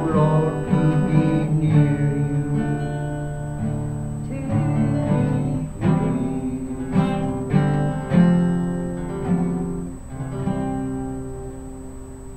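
Acoustic guitar playing, a run of plucked and strummed notes that ring and fade, dying away near the end.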